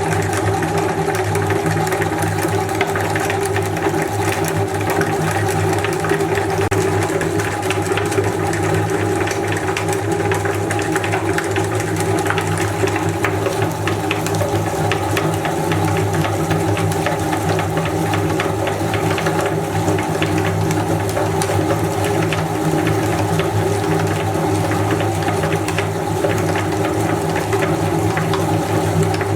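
Electric meat grinder running steadily, its motor humming without a break, with many small clicks and crackles from material being fed through it.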